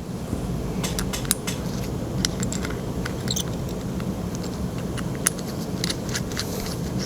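Irregular light clicks and clinks of small metal relay parts being handled as the indicating knob and detent assembly come off the relay body, over a steady low hum.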